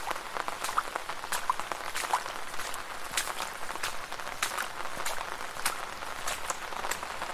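Rain falling on a street: a steady hiss with frequent sharp taps of individual drops, several a second.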